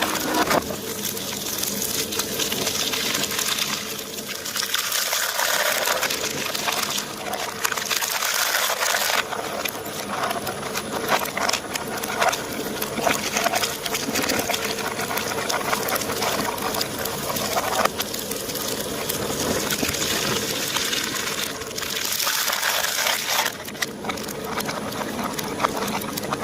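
Shredder blades crushing plastic toy eggs and their contents: a dense, continuous crackling and crunching of breaking plastic over a steady motor hum, played in reverse.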